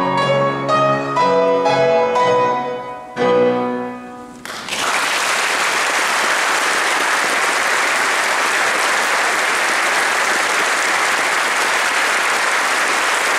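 Boys' choir with piano sings the song's closing bars, ending on a final chord about three seconds in that dies away. Then the audience breaks into steady applause.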